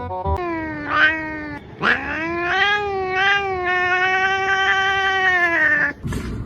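Cat yowling in two drawn-out calls: a short falling one, then a long one that rises, holds steady for about four seconds and drops off at the end.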